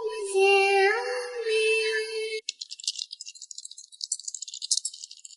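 Background music with long held notes and a few pitch glides, stopping suddenly about two and a half seconds in. It is followed by a rapid, thin, high rattle of many fast clicks.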